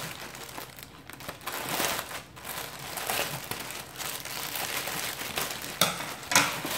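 Plastic mailer bag crinkling and rustling as it is cut open with scissors and pulled apart by hand, with two sharp, louder crackles near the end.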